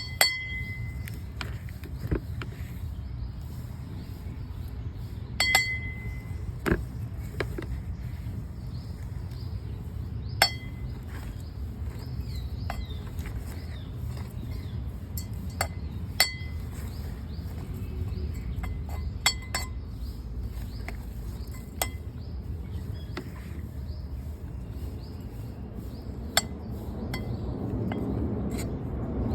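About a dozen scattered light clinks and taps, a few of them ringing briefly, over a steady low hum; the background grows louder near the end.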